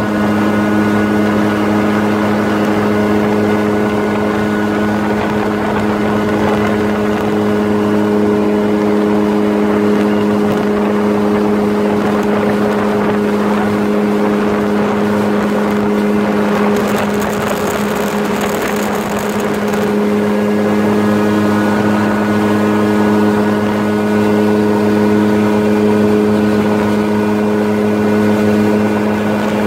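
Yamaha WaveRunner jet ski engine running at a steady cruising speed of about 25 mph: a steady, even-pitched drone over a rushing noise. For several seconds in the middle the engine's tone blurs and the rushing grows louder, then the steady drone returns.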